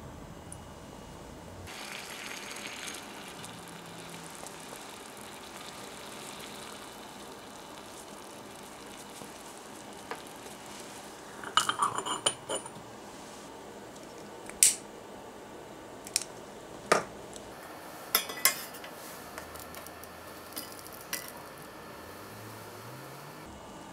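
Small ceramic pieces clinking: a lid set onto a miniature ceramic pot with a quick cluster of clinks about halfway through, followed by several single sharp ceramic taps. Near the start, water trickles briefly from a miniature ceramic teapot into the pot.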